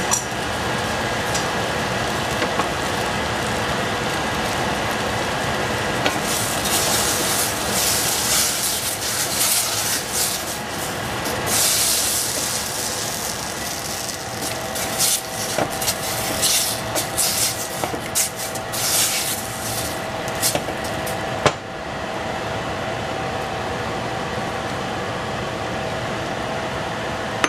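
Food frying in a hot pan on the stove, sizzling and flaring into crackly spells through the middle, over a steady fan-like noise. A single sharp click comes about three quarters of the way through, after which the sizzle settles.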